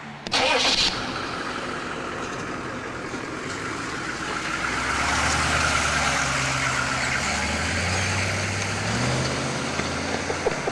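A van's engine revving and the van pulling away, its low note climbing and growing louder through the middle, after a short, sharp burst of noise about half a second in.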